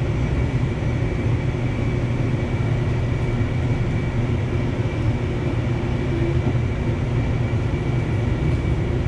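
Light rail train running, heard from inside the car: a steady low rumble with a faint, steady high whine above it.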